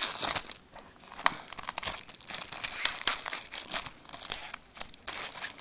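Plastic wrapping on a DVD case crinkling and tearing in irregular crackles as it is pulled open by hand.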